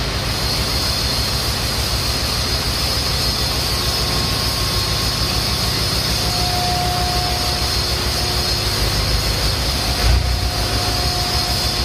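Diesel engine of a JCB telehandler running steadily, with a faint steady whine over it.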